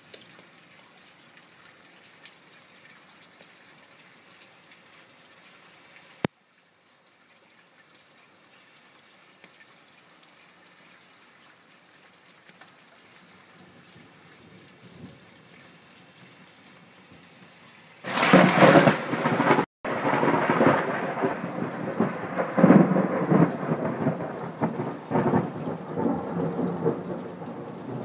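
Thunderstorm: steady rain hiss with one sharp click about six seconds in. About eighteen seconds in a very loud thunderclap breaks suddenly and rumbles on for about ten seconds, slowly fading.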